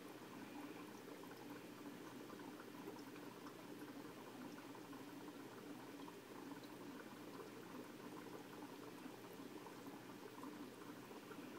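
Faint, steady bubbling and trickling of aquarium water, with small crackles throughout.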